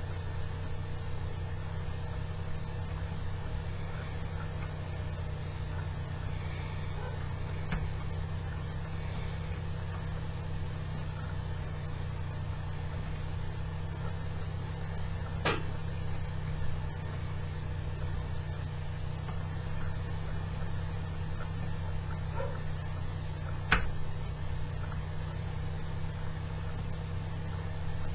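A steady low mechanical hum, with faint light ticks and two sharper metallic clicks, one about halfway through and one near the end. The ticks and clicks come from a tension wrench and hook pick working the pins of a four-pin Master padlock held in a vise.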